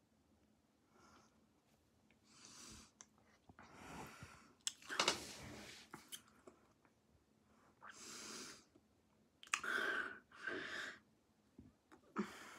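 A person breathing heavily in and out through the mouth, about eight loud breaths and sighs in a row, as a reaction to the sting of an extremely sour candy.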